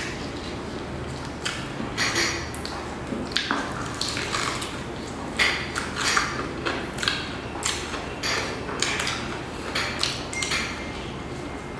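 Eating and food-handling sounds: irregular short crunches, rustles and clicks of fried chicken being eaten, over a steady low hum.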